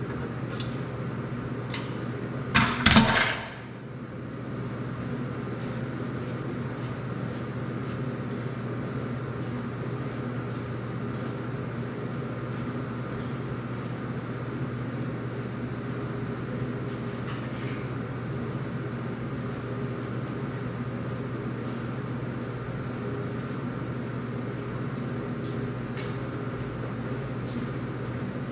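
Steady low electrical hum. A loud clatter about three seconds in, and a few light clicks scattered through.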